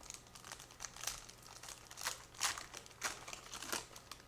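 Trading cards and their foil pack wrapper being handled at a card break: a string of irregular crinkles and rustles, a few sharper ones about halfway and near the end.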